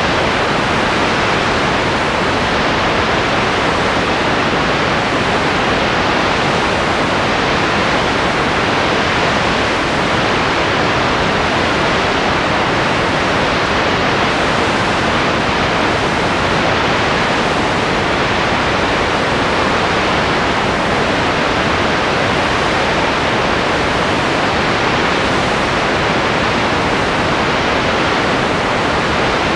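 Steady, loud, even hiss that never changes, with no other sound in it: noise on the soundtrack of a silent home-movie transfer.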